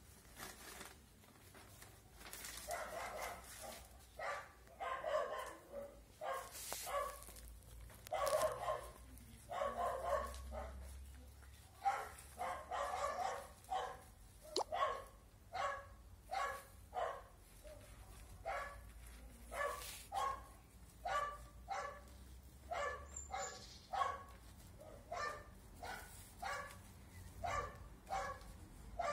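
A dog barking over and over: bunched barks at first, then a steady run of single barks about one and a half a second.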